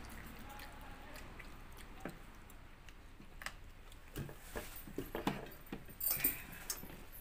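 Eating by hand from steel plates: soft chewing and the squish of rice being mixed with fingers, with light clicks and clinks against the metal, busier in the second half.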